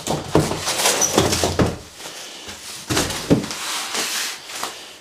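A bubble-wrapped folding solar panel being lifted out of its cardboard box: several dull knocks and thumps against the carton and foam packing, with rustling of the wrapping between them.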